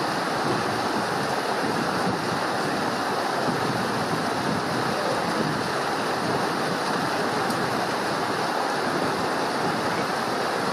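Stream rushing and splashing over rocks as a small white-water cascade, a steady, unbroken rush of water.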